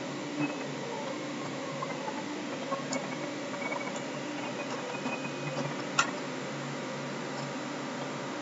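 Computer mouse clicking a few times over a steady background hiss and low hum, the loudest click about six seconds in.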